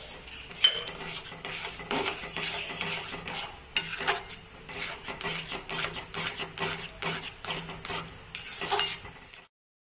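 Metal spoon stirring and scraping thick, cooking mango custard halwa against the sides of a metal pan, a run of wet scraping strokes with an occasional knock of spoon on pan. The sound cuts off suddenly near the end.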